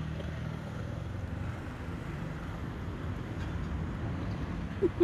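Low, steady rumble of street traffic, with a brief rising chirp near the end.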